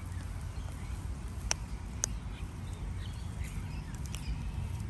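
Sulphur-crested cockatoos foraging on a lawn, with a few sharp clicks about one and a half and two seconds in as they peck and tear at the grass, over a low steady rumble.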